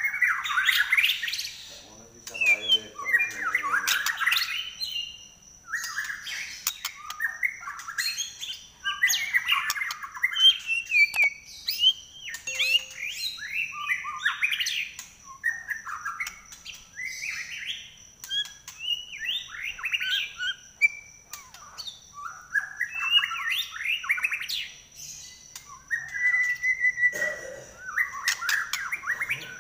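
White-rumped shama (murai batu) singing a varied song of quick whistles and chattering phrases in bursts with short pauses, including one held whistle near the end.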